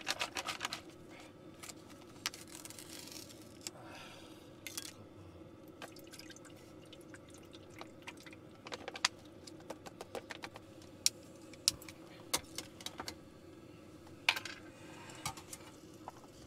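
Scattered light clicks and taps of camp cookware, with something poured from a pouch into a metal mess tin, over a steady low hum.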